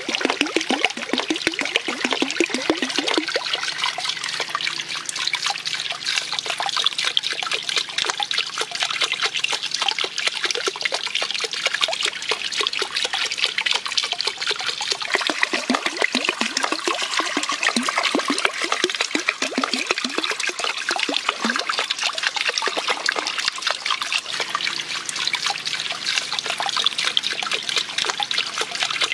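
Water trickling and splashing steadily as a small bamboo water wheel spills into a pool.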